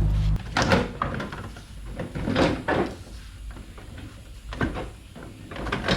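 Scattered knocks and clicks of hand tools and plastic bumper trim being handled while a fastener is removed, about five separate sounds. A low steady hum stops just after the start.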